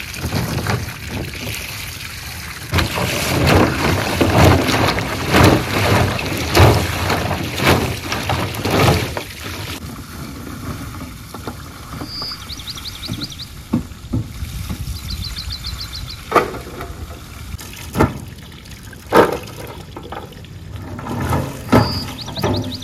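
Water poured from a plastic pot onto a pile of drumstick (moringa) pods on a metal plate, splashing in uneven gushes as hands rub and turn the pods to wash them. The pouring is heaviest in the first half.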